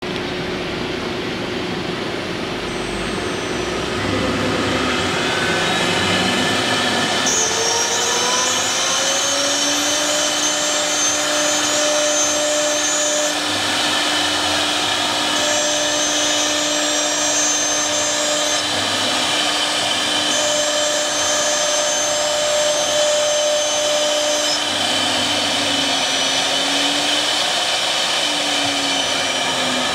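CNC wood router at work, engraving shapes into a wooden board. The spindle spins up to a steady high whine about eight seconds in and winds down near the end, over a constant machine hum. A higher motor whine comes and goes in three stretches as the head moves through its cuts.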